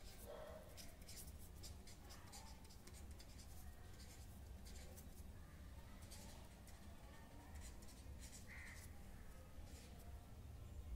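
Pen scratching on paper in many short strokes as words are written by hand, faint, over a low steady hum.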